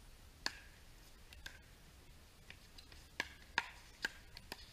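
Pickleball rally: sharp pops of paddles hitting the hard plastic ball. A couple of slower strokes come first, then four quick hits about every half second near the end, the loudest a little after three and a half seconds in.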